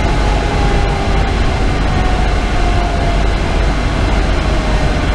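Cab noise of a Pierce Velocity fire engine driving at highway speed: the steady heavy rumble of its 470 hp Detroit Series 60 inline-six diesel mixed with road noise, with a faint tone that slowly falls in pitch.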